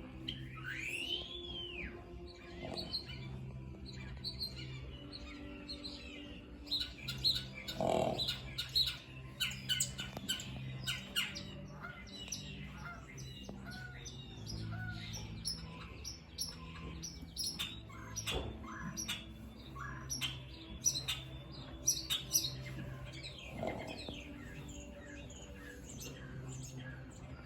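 A thoroughbred horse snoring, a low hum that comes and goes in pulses of about a second, with a few short louder breaths. Small birds chirp and squawk throughout.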